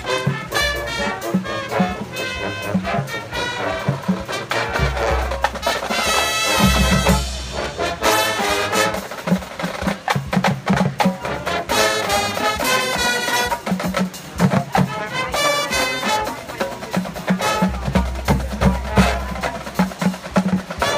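A drum and bugle corps playing its field show: a brass horn line over marching drums and front-ensemble percussion, with a steady rhythmic beat and two stretches of heavy low notes.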